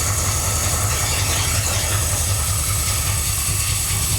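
Chevy 454 big-block V8 idling steadily with an even low pulse, just after start-up and warming up.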